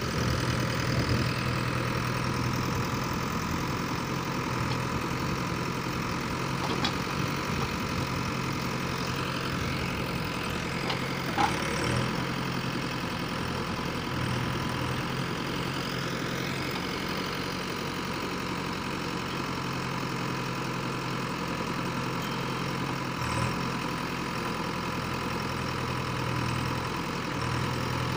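JCB 3DX backhoe loader's diesel engine running steadily as the backhoe arm digs soil, with a few brief sharp knocks, the loudest about eleven seconds in.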